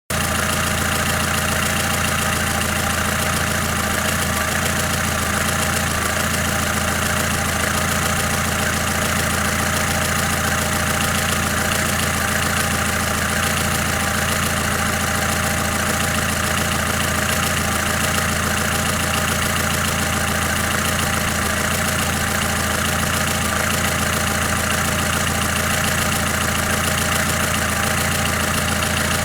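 Lada Kalina's four-cylinder petrol engine idling warm, steady and unchanging, with the light tapping knocks ("подстукивания") that the owner complains of.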